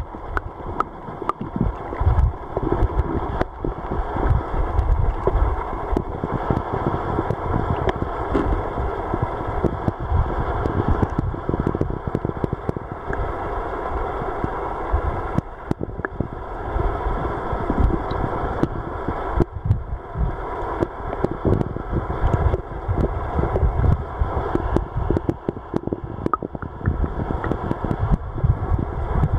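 River current heard underwater over a cobble bed: a steady, muffled rushing rumble with many small clicks and knocks scattered through it.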